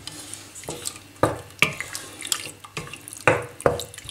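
A wooden spoon stirs diced turkey meat frying in oil in a stainless steel pot, with a light crackling sizzle. The spoon knocks against the pot several times, the loudest knocks coming in two pairs.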